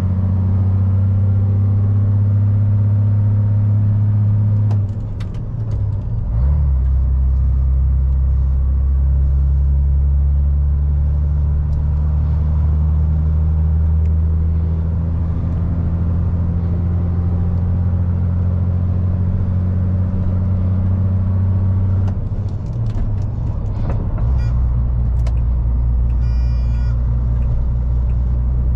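MAN lorry's diesel engine running steadily under way. Its note breaks and drops in pitch at a gear change about five to six seconds in, and again at another change a little after twenty seconds.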